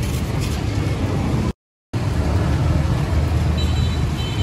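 Steady low rumble of street traffic, with the sound cutting out completely for a moment about a second and a half in.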